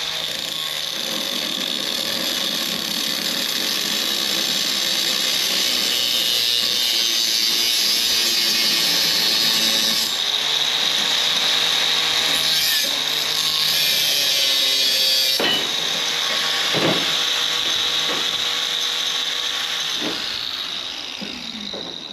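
Electric power tool running continuously on metal, a dense hiss with a steady high whine, fading out near the end.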